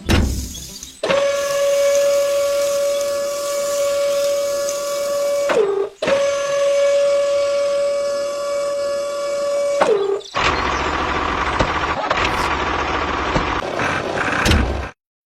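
A small motor running at a steady high hum twice, each run lasting about four seconds and sagging in pitch as it stops, then a rougher, noisier engine-like running.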